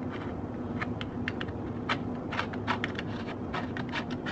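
Irregular light clicks and ticks from the second pedal being fitted to the bicycle's crank arm, hard plastic and metal knocking as the pedal is handled.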